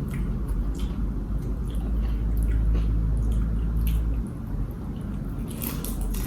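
Close-up chewing of crispy fried pork: wet, squishy mouth sounds with scattered crunchy clicks. A low rumble sits under it and stops about four seconds in.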